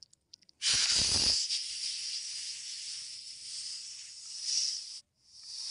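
Cobra hissing: a long, loud hiss that starts about half a second in with a low rumble under its first moment, holds steady for about four seconds, cuts off abruptly and starts again near the end.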